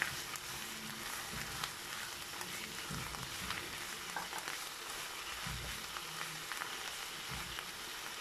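Spinach frying gently in oil in a metal karahi, a steady soft sizzle, while a wooden spatula stirs and scrapes through it to mix in salt.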